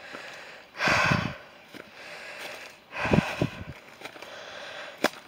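A walker's heavy breathing, with one loud breathy exhale about a second in, and a few soft footsteps on the path.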